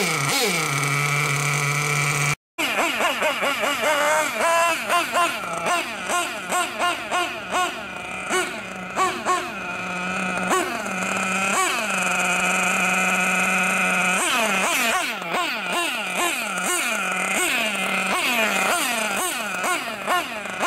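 BG Fusion nitro engine in an RC buggy, first running at a steady idle, then, after a brief dropout about two seconds in, revving up and down over and over in quick throttle blips as the buggy drives, with a few longer steady high-rev stretches. This is a break-in run of a new engine.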